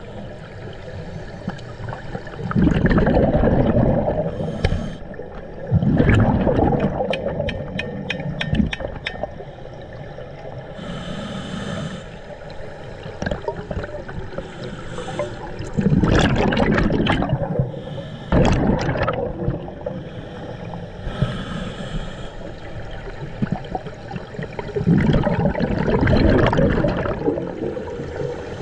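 Scuba diver breathing underwater through a regulator: loud, gurgling bursts of exhaled bubbles come about five times, with short hissing inhalations and a run of quick clicks between them.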